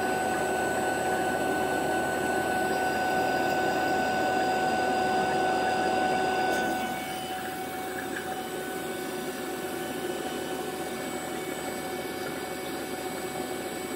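Fieldpiece VP85 vacuum pump running steadily as it pulls a vacuum on a refrigerant recovery tank: an even hum with a steady whine over it. It gets a little quieter about seven seconds in.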